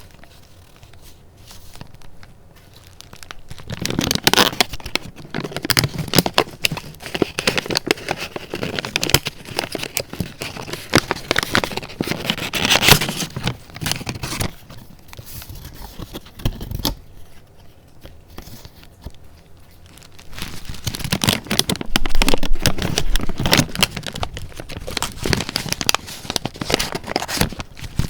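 Sheets and pieces of paper being handled close up, rustling and crinkling. There are two busy stretches of handling, from about four seconds in and again from about twenty-one seconds in, with a quieter lull between them.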